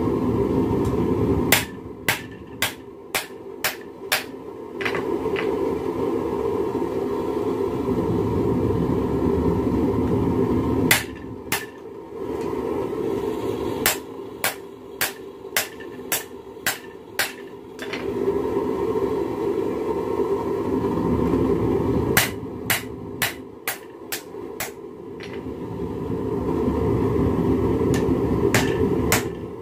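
Hand hammer forging a red-hot steel railroad spike on a small anvil: three runs of about eight sharp blows each, two to three a second, with single blows between. Between the runs a steady low rushing noise rises and fills in.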